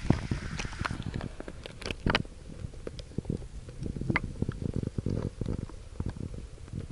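Muffled sound of a shallow river heard with the microphone under water: a low rumble of moving water with scattered clicks and knocks, the loudest near the start and about two seconds in.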